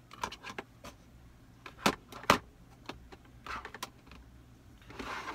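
Small hard makeup containers clicking and knocking as they are picked up and handled on a table, with two sharper knocks about two seconds in and brief rustling near the end.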